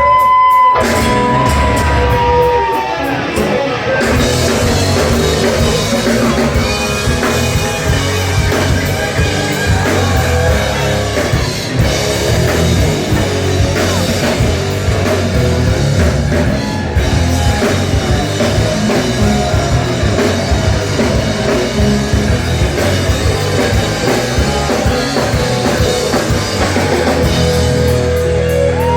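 Live rock band playing an instrumental passage: electric guitars, bass and a drum kit, with sustained guitar notes near the start and again near the end.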